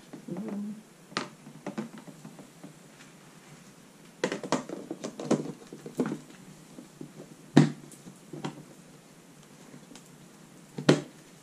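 Plastic food-storage tub having its lid fitted: scattered light clicks and knocks of plastic on plastic, with a sharp snap about two-thirds of the way through and another near the end as the lid is pressed home.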